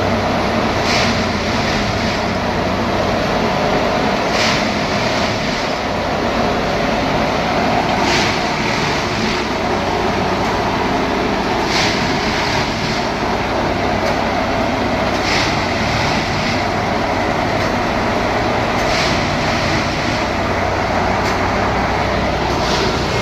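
3X railway track tamping machine at work: a steady, loud machine din, with a short sharp burst of noise repeating about every three and a half seconds as its working cycle repeats.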